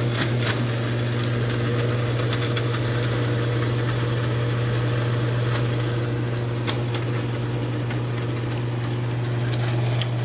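Electric mixer grinder running steadily at full speed with a strong low hum, grinding mint, green chillies, tamarind and ice cubes into a paste. Scattered sharp clicks come from the ice and solids striking the steel jar.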